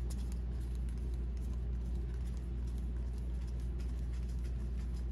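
Faint light ticks and rustling of trading cards being handled and flipped through, over a steady low hum.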